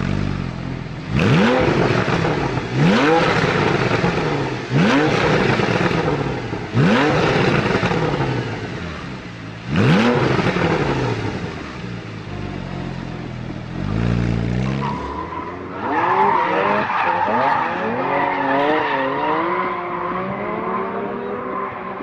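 Porsche Cayman S's 3.4-litre flat-six engine revved in five sharp throttle blips, each rising quickly and falling back, about two seconds apart. From about fifteen seconds in, tyres squeal with a wavering pitch over the engine.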